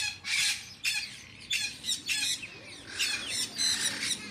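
Parrots squawking: a rapid, uneven run of loud, harsh, high-pitched screeches from several birds, about eight calls in four seconds, some overlapping.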